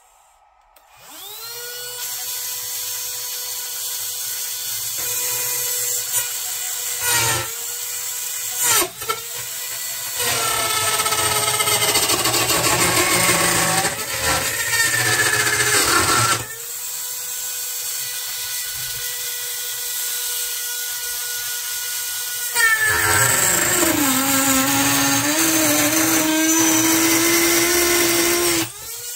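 Small electric motor of a model excavator's wood cutter attachment spinning up about a second in and running with a steady high whine. Twice it grows louder and rougher and its pitch sags under load, with a rasping noise as the cutter bites into wood, the second time the longer and lower one near the end.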